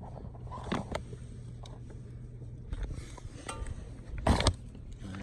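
Knocks and clatter of metal exhaust pipe sections being handled and set down, loudest a little over four seconds in, over a steady low hum.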